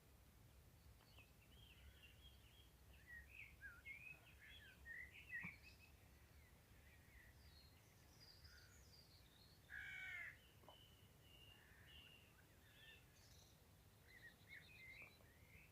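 Faint birdsong: many short, scattered chirps and twitters, with one louder, harsher call about ten seconds in.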